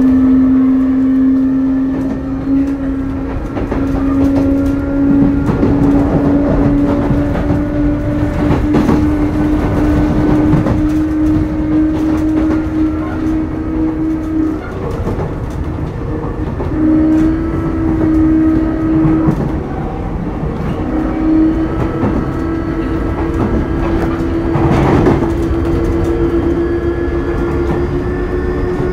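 Sotetsu New 7000 series electric train running, heard from on board: the whine of its early Hitachi GTO-VVVF inverter and traction motors climbs slowly as the train gathers speed, breaking off briefly a few times, over a steady rumble of wheels on rail. Rail joints click now and then, with one louder knock about 25 seconds in.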